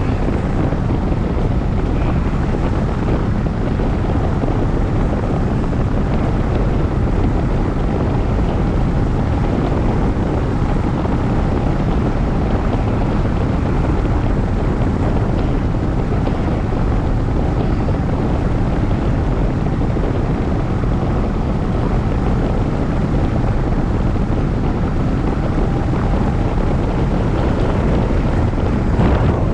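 Steady rush of wind buffeting the microphone of a camera on a tandem hang glider's wing in flight, with no breaks.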